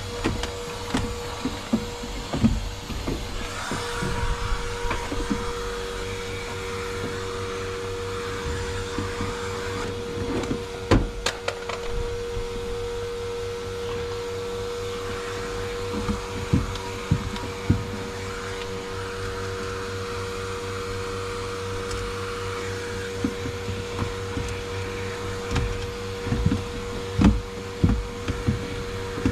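A steady motor-like hum, with irregular knocks and thumps of things being handled.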